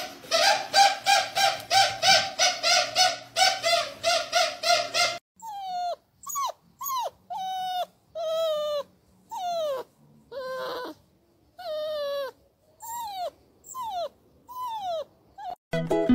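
A dog whining in quick, evenly repeated cries, about three a second, for some five seconds. Then a curly-coated dog whimpers in a string of separate short whines, each falling in pitch.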